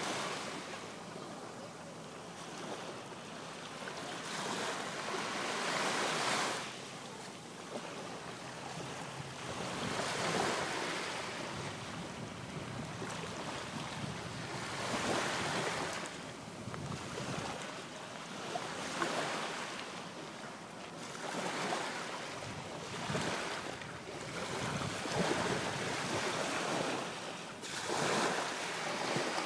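Small Gulf of Mexico waves breaking and washing up the sand, the surf swelling and fading every four to five seconds, with wind on the microphone.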